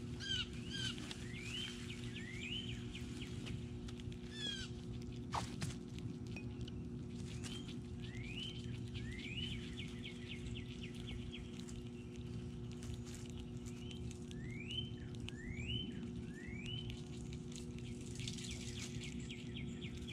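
A songbird whistling clear rising notes, in groups of two or three with pauses between, over a steady low hum. Faint scattered clicks, with one sharper click about five seconds in.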